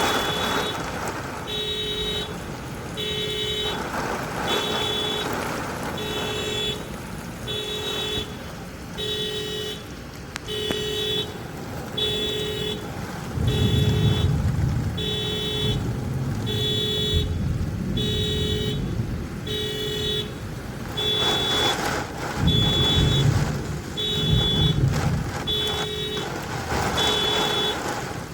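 A car alarm set off by the thunder, sounding an evenly repeating horn pulse about once a second. Thunder rumbles loudly about halfway through and again near the end, over the hiss of rain.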